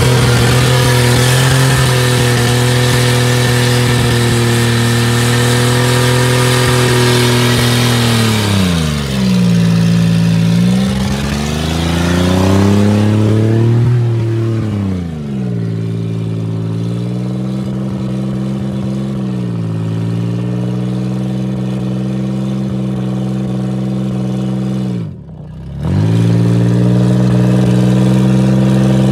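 Buick LeSabre's 3.8-litre V6 held at high revs in a front-wheel burnout with the tyres spinning in mud, with a hiss on top for the first eight seconds. The revs sag and climb again a couple of times about ten seconds in, then hold steady, and the sound drops away for a moment near the end before coming straight back.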